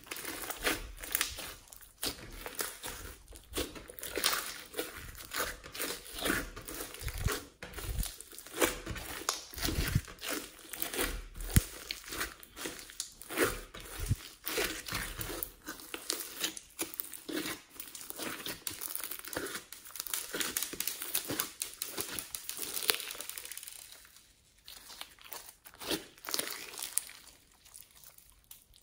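Glittery slime with floam foam beads mixed in, being kneaded, squeezed and stretched by hand: a dense run of irregular crackles and pops, thinning out and going quieter near the end.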